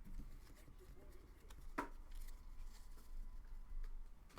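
Faint rustling and light clicks of trading cards being handled and flipped through, with one sharper click about two seconds in.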